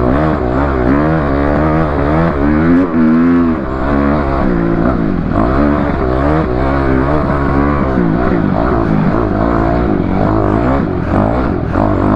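A motor vehicle's engine running as it drives, over a steady low road hum, its pitch wavering up and down.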